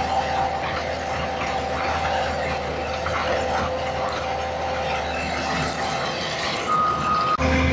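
Skid steer engine running steadily under a busy mechanical clatter and rattle of the working machine. Shortly before the end a brief steady whine, then the sound changes abruptly to a louder, steadier engine note.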